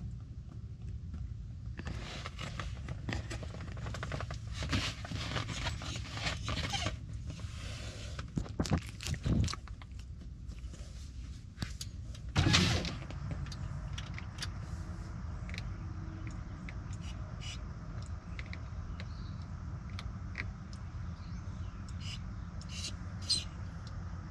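Steady low rumble of a car heard from inside the cabin. From about two to seven seconds in there is a run of scraping and clicking, and a single louder knock comes about halfway through.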